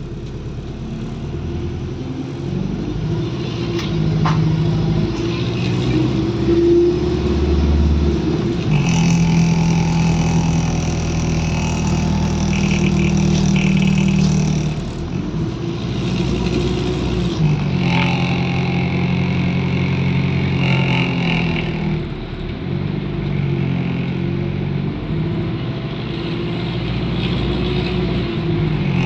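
Diesel engine of a converted ADL Enviro400 double-decker bus running and pulling away. The engine note builds and drops back in several surges as it goes up through the gears, with a whine higher up that rises and falls with it.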